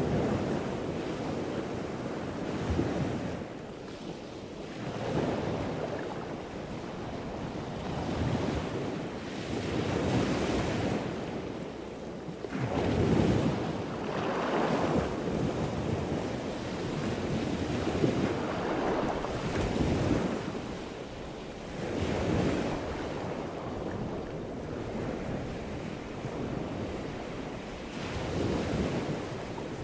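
Ocean surf washing onto a sandy beach, swelling and fading every few seconds, with some wind on the microphone.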